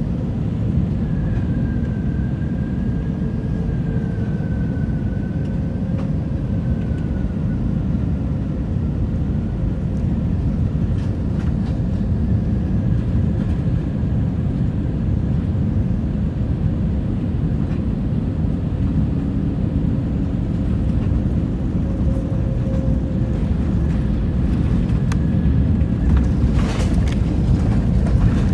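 Steady in-cabin rumble of an Airbus A321neo in flight or on its landing roll, from airflow and its CFM LEAP-1A engines, with faint engine tones that drift slowly in pitch. There is a brief louder rush near the end.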